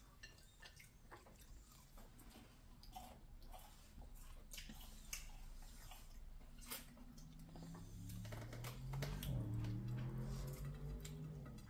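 People chewing fried chicken at a dinner table, with scattered light clicks of cutlery and dishes. A low hum of a voice comes in for the last few seconds.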